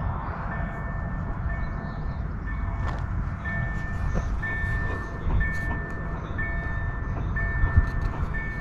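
Railway level-crossing warning signal sounding a high repeated tone about once a second, warning of an approaching train, over a steady low rumble.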